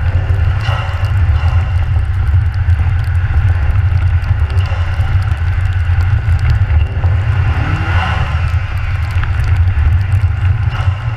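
Nissan Juke driving at speed over snow-covered ice, heard through a camera mounted outside the car: a loud, steady low rumble of wind and tyre noise, with the engine running underneath.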